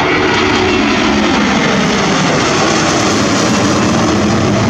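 Airbus A330-300's twin turbofan engines at takeoff power as the airliner climbs away: a loud, steady jet roar, with a tone in it falling in pitch over the first second or so.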